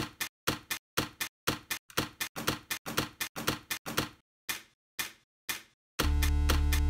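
Repeated sharp knocks as a computer power supply's metal case is smashed open, about two blows a second, coming faster in the middle and slower toward the end. Music starts about six seconds in.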